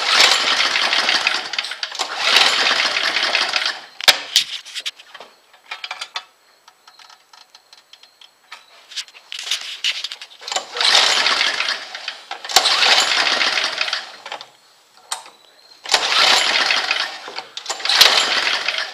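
John Deere snowblower's small engine being pull-started by its recoil starter: six pulls in three pairs, each a rough burst of cranking about a second and a half long, and the engine does not keep running. The carburettor mixture screw is still being set, and the engine has been getting too much fuel.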